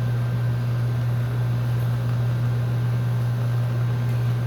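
A steady low hum with an even hiss over it, unchanging throughout, like a running appliance or fan.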